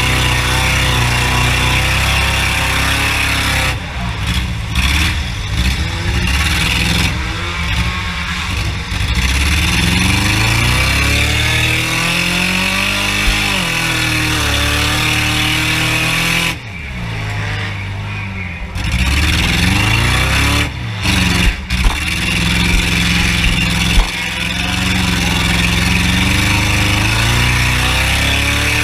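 Junk race cars' engines running hard, pitch rising and falling as they rev and ease off, with the engine sound dropping away briefly twice.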